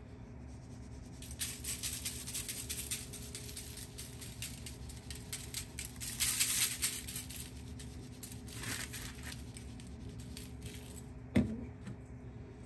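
Dry barbecue rub shaken from a shaker container onto a rack of ribs on aluminium foil: a few short bursts of rustling as the granules fall. A single sharp knock near the end as the container is set down on the wooden counter.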